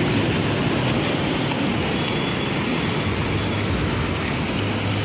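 Steady rushing of a waterfall cascading down rocks, with a low rumble underneath.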